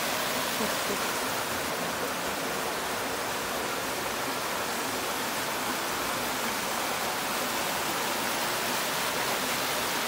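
Small mountain-river waterfall spilling over rock ledges into a pool: a steady rush of falling water.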